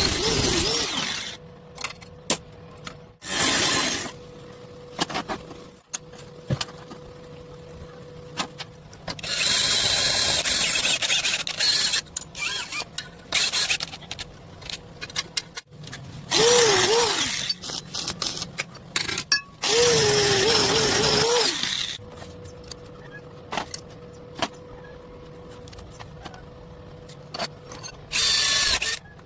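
Power tool running in repeated loud bursts of a second or more, its whine wavering in pitch under load, with sharp clicks and knocks of metalwork between the bursts and a faint steady hum.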